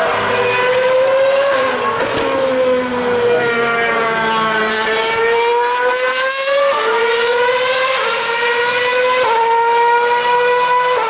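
Formula One car's 2.4-litre V8 running at high revs, a high-pitched, steady engine note that sags slightly, then jumps up in pitch three times in quick succession near the end.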